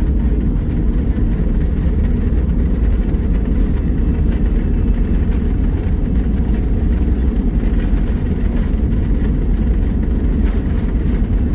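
Airliner taking off: a loud, steady low rumble of jet engines and airframe.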